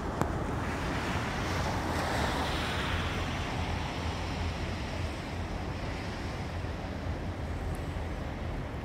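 Steady outdoor noise with a low rumble of wind on the microphone, and a louder hiss that swells and fades between about one and three seconds in.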